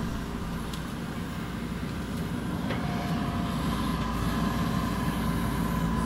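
JCB backhoe loader's diesel engine running steadily while the backhoe arm digs, with a couple of faint ticks.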